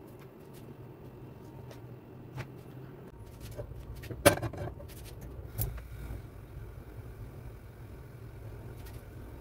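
A frying pan set down on a gas stove's metal grate: one sharp clank about four seconds in, then a lighter knock a second later, over a low steady hum. Before that, faint crackles of hands pressing a breadcrumb coating onto a potato square.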